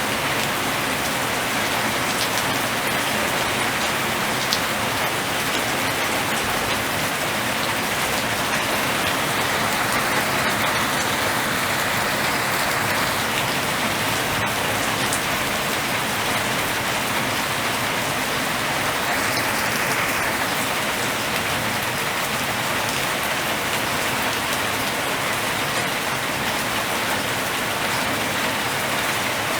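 Steady rain falling: an even hiss of rain with a few faint drop ticks.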